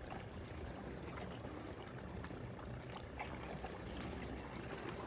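Sea water washing and lapping against a rocky shore, a steady low wash with a few faint clicks scattered through it.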